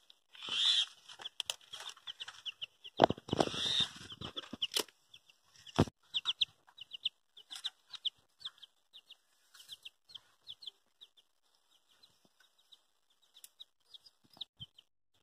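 A mongoose caught in a wire cage trap gives rapid, repeated short clucking chirps. In the first six seconds a few loud bursts of rustling and knocks against the cage break in.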